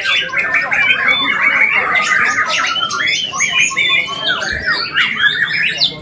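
Several caged white-rumped shamas (murai batu) singing at once on a contest rack. The sound is a dense, unbroken jumble of overlapping fast whistles, chatter and harsh calls.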